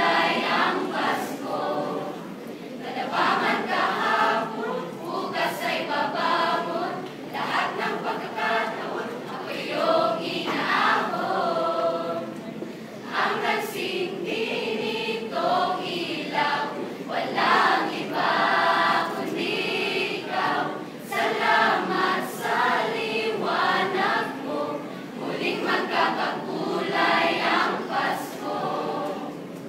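Mixed choir of male and female voices singing together, phrase after phrase.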